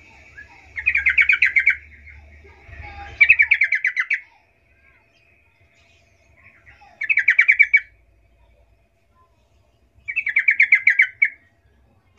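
Yellow-vented bulbul (trucukan) singing: four phrases of fast repeated notes, each about a second long, a few seconds apart.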